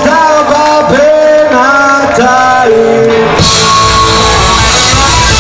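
Rock band playing live: voices singing over guitars, then about three and a half seconds in the full band comes in harder with electric guitars and drums.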